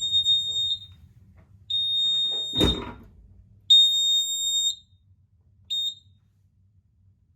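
A fire alarm system's piezo sounder giving high-pitched electronic beeps: three beeps of about a second each, then a short chirp near the end. A single knock falls midway through the second beep.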